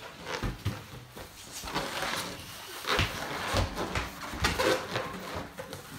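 Puffs of breath blown into a latex balloon to inflate it, with a few soft low thumps.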